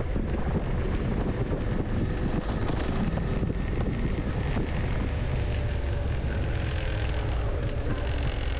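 Suzuki SV650's V-twin engine running steadily at cruising speed, mixed with heavy wind rush over a helmet-mounted intercom microphone.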